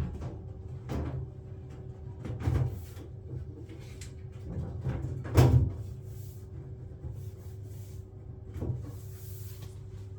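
Ideal gas boiler running with a steady low hum from its freshly oiled combustion fan and lit burner, while a few knocks and clunks of handling sound over it, the loudest about five seconds in.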